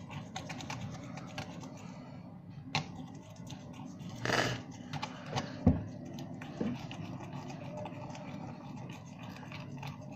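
Scattered scrapes and clicks of containers and utensils being handled while slime is mixed, with a short rustling burst about four seconds in and a sharp knock just after.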